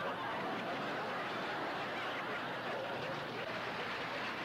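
Studio audience laughing: a steady, dense wash of many people's laughter.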